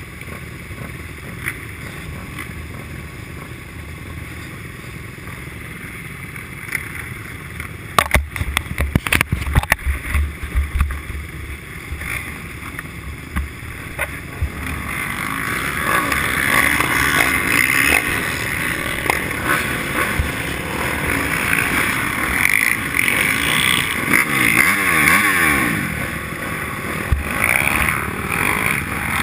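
A pack of motocross dirt bike engines running at the start line, heard from a helmet camera, getting louder from about halfway with engines revving up and down. A run of sharp thumps about a third of the way in.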